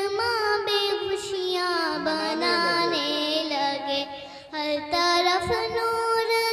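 A boy singing a naat solo into a microphone, drawing out long, wavering melodic notes without clear words, with a brief pause about four and a half seconds in.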